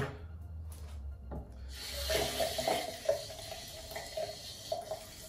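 Tap water running into a sink, starting about two seconds in and flowing steadily.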